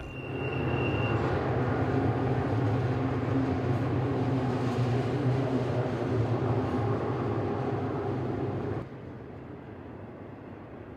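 Double-stack intermodal freight cars rolling past close by, a steady rumble of wheels on rail with a low hum underneath and a brief high whine in the first second. About nine seconds in it drops suddenly to a quieter, more distant rumble of a train of highway trailers on flatcars.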